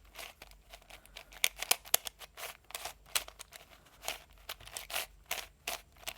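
MoFang JiaoShi Kilominx being turned by hand: quick, irregular plastic clacks and scrapes of its layers, several a second.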